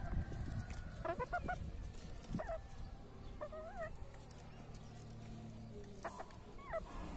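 Chickens clucking: a quick run of short clucks about a second in, then single calls and a wavering call scattered through, over a low background rumble.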